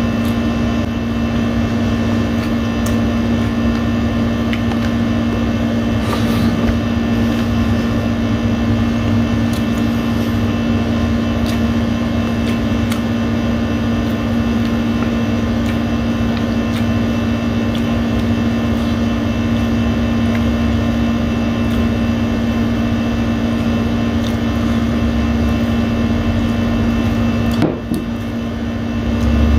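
Steady, loud air-conditioner hum with a strong low drone, dipping briefly near the end, with faint clicks of chewing and eating by hand over it.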